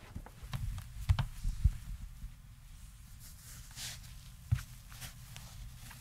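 Slow barefoot footsteps on a carpeted floor: a few soft low thuds, the loudest two about a second in and just under two seconds in, and another about four and a half seconds in.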